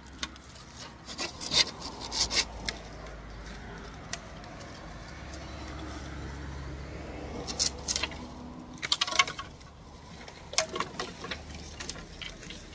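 Hand saw cutting through a dry bamboo pole with steady rasping strokes, broken by sharp hollow clacks and knocks as the bamboo poles are handled, loudest about a second and a half in and again later on.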